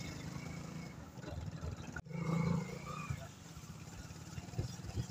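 Motorcycle engine running steadily at low speed over a rough gravel road. The sound drops out sharply for an instant about two seconds in, then comes back briefly louder.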